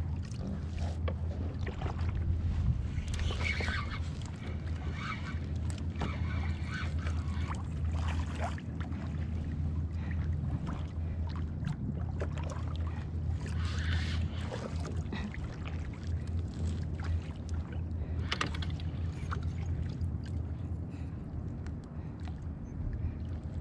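Water sloshing against a kayak's hull and outrigger float, with a steady low rumble of wind on the microphone and scattered small clicks.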